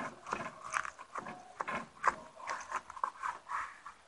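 Large chef's knife sawing back and forth through a rack of smoked, sauce-glazed pork ribs on a wooden cutting board: rough scraping, crunching strokes, about two or three a second, as the blade works through the crust.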